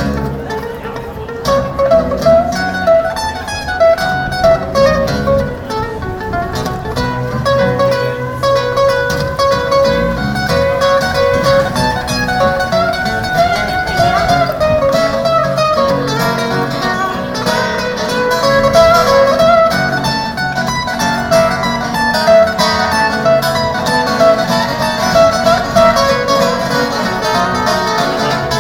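Acoustic band playing an instrumental break with no singing: a plucked acoustic guitar lead line over the band's steady accompaniment.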